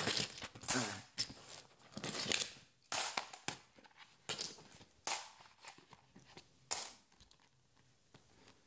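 50p coins clinking as they are dropped one after another into a pile, a series of separate sharp metallic clinks with a short high ring, about one a second, stopping near the end.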